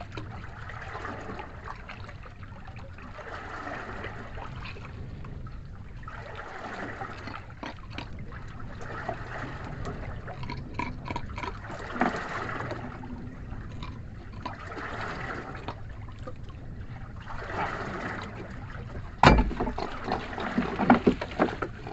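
Seawater trickling and splashing off a wet gill net as it is hauled by hand into a small wooden boat, in swells every couple of seconds, with small clicks from the net. Near the end a sharp knock against the boat, then a few lighter knocks.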